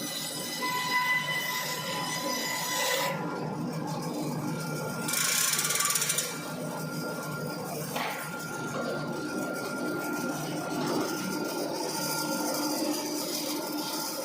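Portable horizontal band sawmill cutting timber: the band blade rasps steadily through the wood, with thin steady whining tones over the noise and a louder hiss for about a second, about five seconds in.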